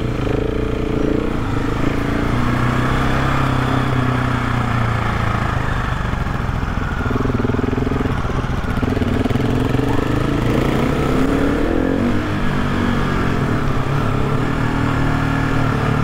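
GasGas SM700 supermoto's single-cylinder engine running on the move, its pitch rising and falling with the throttle. It carries a slight whining note, something between a whistle and a grind, which the rider concludes is apparently normal for this engine.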